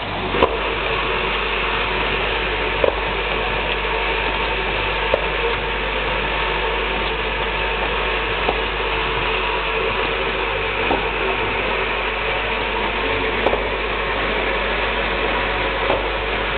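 Automatic pneumatic spot welding machine running: a steady low hum and hiss, with a sharp click every two to three seconds.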